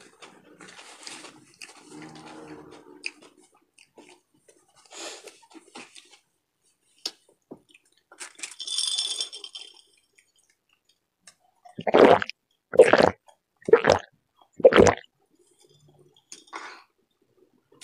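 Close-up eating sounds: quiet chewing and mouth noises, then four loud gulps about a second apart as a drink is swallowed.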